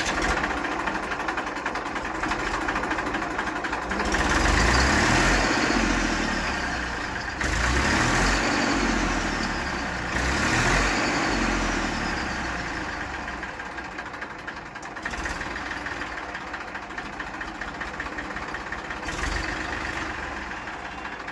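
Massey Ferguson 241 DI tractor's Simpsons three-cylinder diesel engine running just after a cold start. It is revved up three times in the first half, each time rising and falling back, then settles to a steady idle. The starting and power are judged good, with a little smoke.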